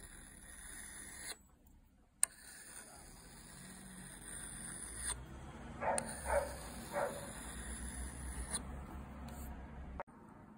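A dog barking three short times about six seconds in, over a steady hiss, with a sharp click near the start.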